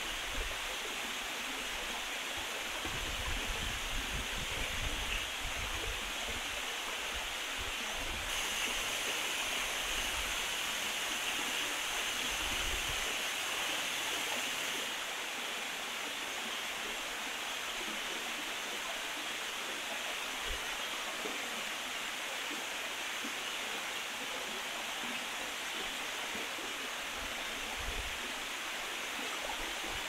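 Steady rush of a shallow stream spilling over small rock cascades, with some low rumbling in the first dozen seconds.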